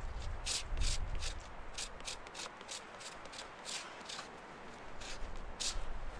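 Irregular rubbing and scraping sounds: a string of short, crisp strokes at uneven intervals, most of them in the first two seconds and sparser later.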